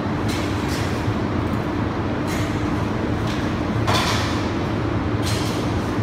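Sheet-metal air-box panels scraping and rattling in short bursts as they are pushed and slid into place, the loudest about four seconds in, over a steady low hum.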